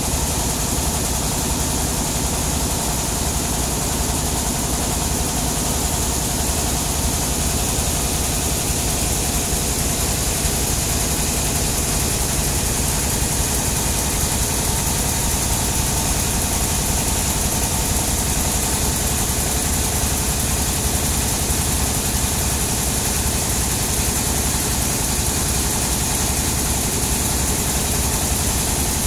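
A sawmill engine running steadily at an even idle, with no change in speed or load.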